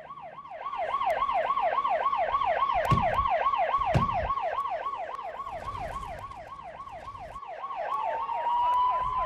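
Emergency-vehicle siren sounding in a fast yelp, about four sweeps a second. A second, steadier siren tone rises in near the end. Two short thumps come about a second apart in the middle.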